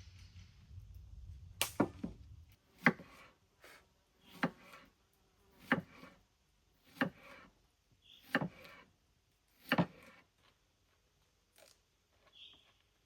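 Steady chopping: seven sharp knocks on wood, evenly spaced about a second and a half apart.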